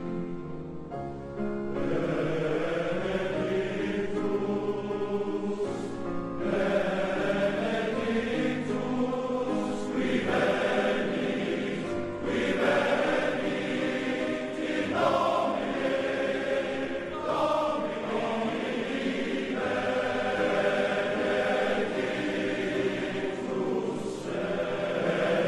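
Welsh male voice choir singing in harmony, in long held phrases, growing louder a couple of seconds in.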